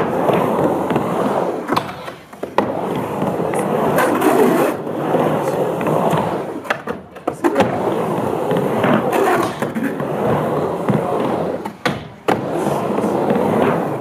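Skateboard rolling on a ramp, its wheel noise swelling and fading as it runs across the flat and up the walls. Several sharp clacks cut in along the way.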